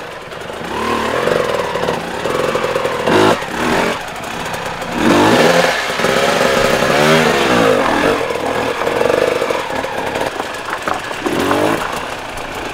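Hard enduro dirt bike engines revving, their pitch climbing and dropping again and again with the throttle.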